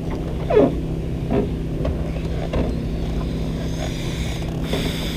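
Steady low hum of a boat motor, with water slapping against the aluminum hull of a small fishing boat several times on a choppy lake.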